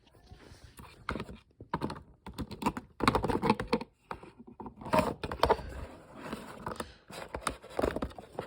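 Toy packaging being pulled and worked at by hand, with irregular clicks and rustling.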